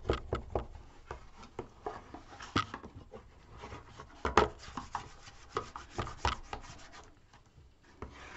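A bone folder rubbing and scraping over freshly glued paper inside a cardstock box, burnishing it down into the edges and corners in short, irregular strokes with small knocks.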